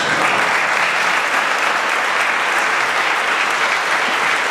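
Congregation applauding: many people clapping at a steady level.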